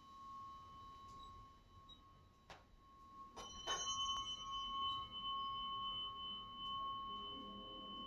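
Faint, steady ringing tones from a tuning fork, with a couple of short knocks about two and a half and three and a half seconds in, after which a higher ringing tone joins in and holds.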